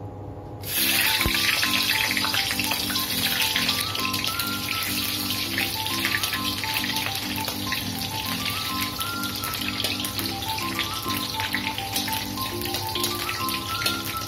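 Cut lemongrass stalks sizzling and crackling in hot oil in a wok, sautéed until fragrant as the first step of a curry base. The sizzle starts suddenly about a second in, under background music with a steady bouncy beat.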